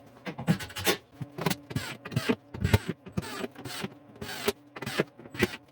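Irregular knocks, clunks and scrapes of a wooden tool cart's top being handled and set in place, a dozen or more sharp hits of varying loudness.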